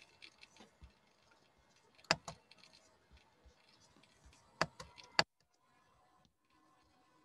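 A few sharp clicks and knocks amid faint crackling: a pair about two seconds in and three more between four and a half and five seconds. After them only a faint steady hum is left.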